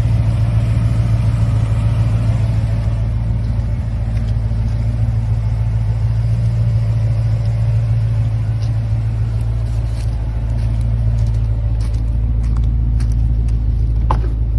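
Classic Ford Mustang's engine running with a steady, deep rumble that holds an even pitch throughout, with a few light clicks near the end.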